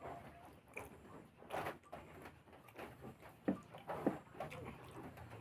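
A person chewing food with wet mouth smacks and irregular soft clicks; the sharpest clicks come about three and a half and four seconds in.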